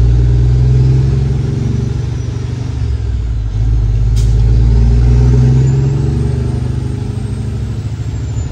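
Semi truck's diesel engine pulling away under load, heard from the cab: the engine note swells, eases off and swells again as it picks up speed, with a faint high whine rising about halfway through.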